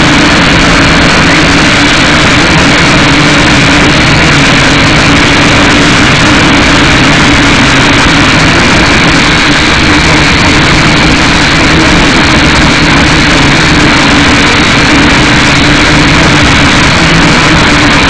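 Syma X5C quadcopter's small electric motors and propellers buzzing loudly and steadily, close to the onboard camera's microphone, with a held hum whose pitch wavers slightly over a dense hiss.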